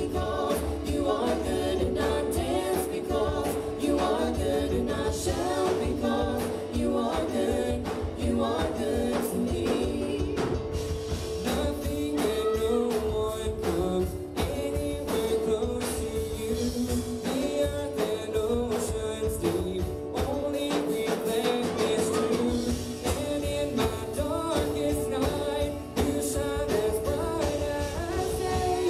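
Live gospel praise band playing an upbeat song: several singers with electric bass, keyboard and drums, with a steady drumbeat throughout.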